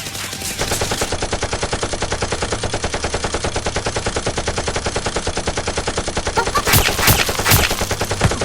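Rapid automatic gunfire, a long unbroken run of shots that gets louder about half a second in, with a few louder single shots near the end.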